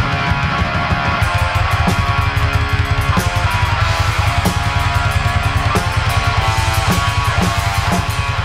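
Heavy rock music: distorted electric guitar over a drum kit played fast, with rapid low bass-drum strokes and sharp drum hits about every second.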